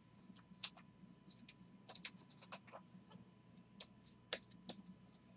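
Stack of Topps Chrome baseball cards being flipped through by hand, the stiff card stock giving faint, irregular clicks and snaps as each card is slid off the pile.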